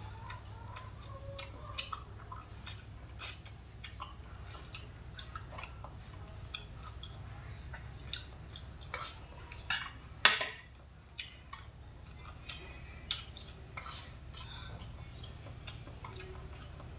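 Scattered clinks and clicks of a metal spoon and chopsticks against a stainless steel compartment tray during a meal, the sharpest about ten seconds in, over a steady low hum.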